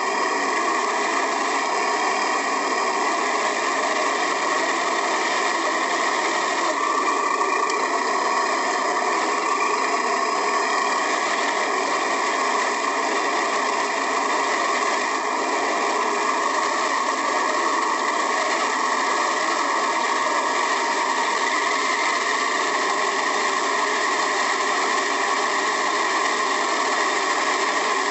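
An HG-P408 scale RC Humvee running, heard from a camera mounted inside its cab. It makes a steady mechanical whir with no deep bass.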